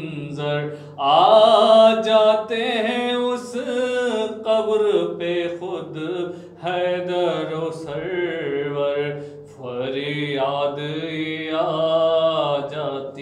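A solo male voice chanting a melodic devotional recitation, with long held notes that waver and glide in pitch, over a steady low hum.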